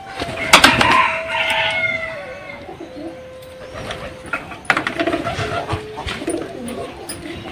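Domestic fowl calling: a rooster crowing and hens clucking, loudest about half a second to two seconds in, with shorter calls later. A steady held tone runs underneath for the first half.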